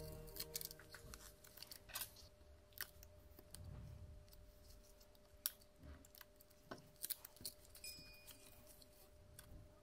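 Sparse small clicks and ticks of metal tweezers and fingers handling a smartphone's internal parts and connectors, over a faint steady tone.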